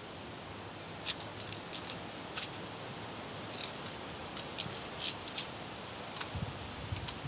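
Scattered light clicks and taps, about ten spread unevenly, as small plastic parts of a teleprompter are handled and fitted together by hand, over a steady background hiss.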